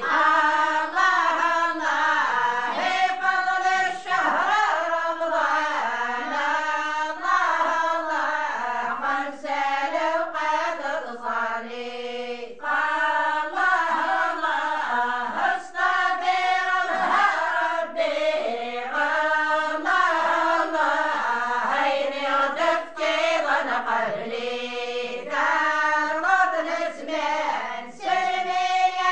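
A group of women singing a religious praise song (madih) together in Amazigh, unaccompanied, in a chant-like melody that runs on continuously.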